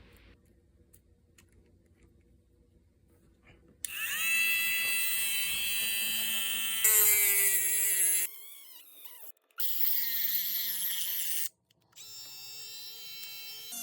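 Electric drill motor whining, starting about four seconds in and running at changing speeds, its pitch wavering. It stops abruptly and starts again a few times.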